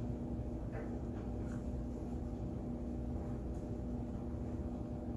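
Steady low background hum with a constant tone, under a few faint, short mouth clicks from someone chewing steak.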